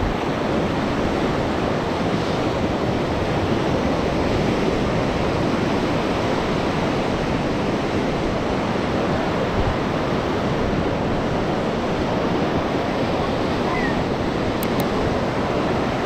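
Steady rush of sea surf on the beach, mixed with wind buffeting the camera microphone.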